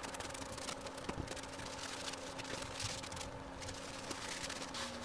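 Cloth rag wiping and rubbing Danish oil stain onto a mule deer antler: soft, irregular rubbing and scraping strokes, over a faint steady hum.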